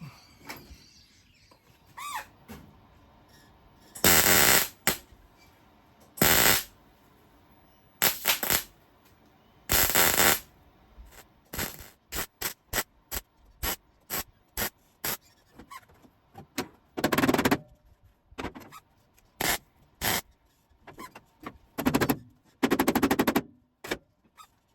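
Arc welding sheet steel: a series of crackling welds. Several last half a second to a second, then comes a quick run of many short bursts, as when tacking or stitching a repair panel in place.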